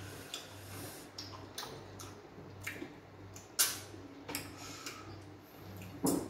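Close-up eating sounds: wet mouth clicks and smacks from chewing sticky fufu and slimy okra soup eaten by hand, coming in scattered single clicks. The loudest click comes about three and a half seconds in, with another near the end.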